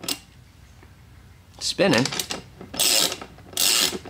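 Ratchet wrench clicking through two short strokes, about three seconds in and again near the end, as it turns a 14 mm bolt on the motorcycle's engine through-bolt to loosen it.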